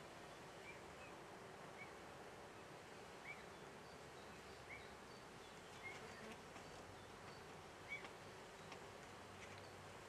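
Bumblebee buzzing faintly as it works a flower. Short high chirps come every second or so and are the loudest moments.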